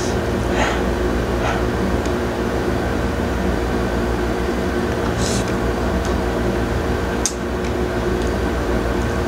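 Steady low machine hum in the room, with faint chewing and mouth noises as a shrimp is bitten and eaten, and a brief sharp click about seven seconds in.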